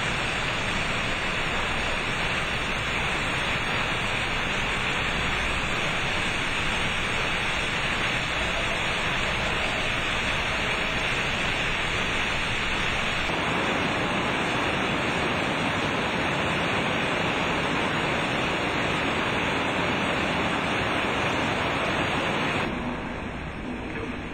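Water gushing steadily into a ballast compartment inside a concrete immersed tunnel element as it is flooded to sink it, a constant rushing hiss. Near the end the rush drops off sharply and a quieter, different water sound takes over.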